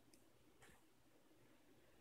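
Near silence: faint room tone with a low hum and two faint short clicks, one just after the start and one past the middle.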